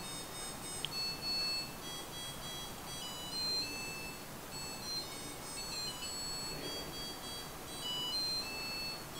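Samsung dishwasher playing its end-of-cycle tune, a melody of simple high electronic beeps that signals the wash and dry cycle is finished.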